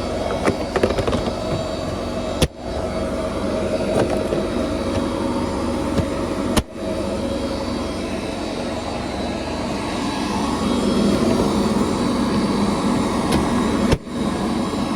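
A vehicle engine running steadily under load, with a constant mechanical drone. It cuts out sharply for an instant three times.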